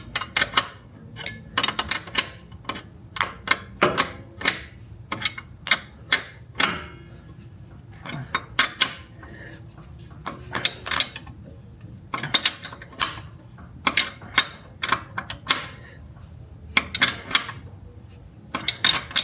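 Hand tools and metal parts clinking and clicking in quick, irregular clusters as the shift cable hardware is worked on.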